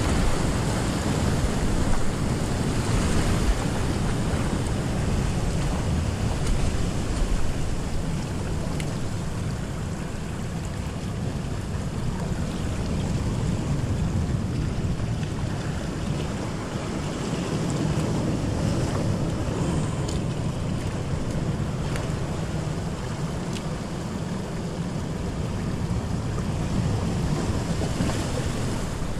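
Surf surging and washing over shoreline rocks in a steady rush, with wind noise on the microphone.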